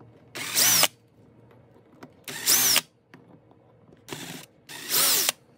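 Cordless drill/driver running in four short bursts, each with a whine that rises and falls in pitch, backing out the screws that hold the EZ-Start starter to the back of a nitro RC engine.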